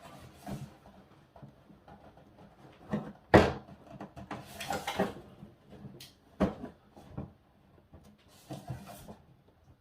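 Hard plastic toy-playset parts being handled and pushed into place: a series of knocks and scraping rustles, the loudest a sharp knock about three and a half seconds in, as a piece is brought down into its clip-in slots.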